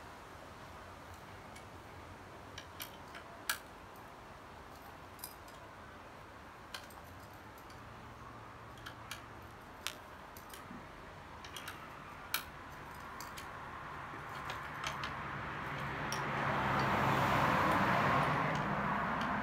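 Scattered sharp metallic clicks of a tool working the bicycle seat-post saddle clamp bolt as it is tightened, coming singly or a few close together. Near the end a broad rush of noise swells up and fades, louder than the clicks.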